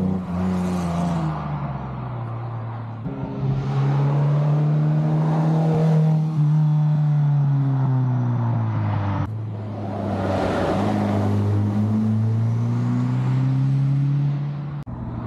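Historic competition cars driving past one at a time on a winding road, each engine note rising as the car accelerates and falling away as it goes by. The sound jumps abruptly from one car to the next a few times.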